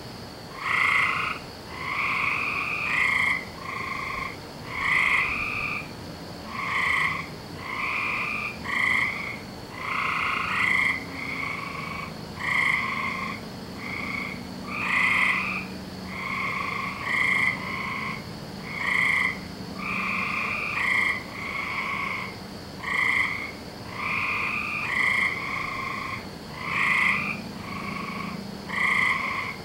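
A chorus of frogs calling: short croaking calls repeating about once a second, with several frogs overlapping and answering one another at slightly different pitches.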